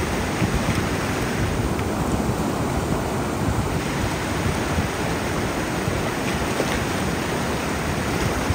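River water rushing over rocks: a steady, even wash of water noise.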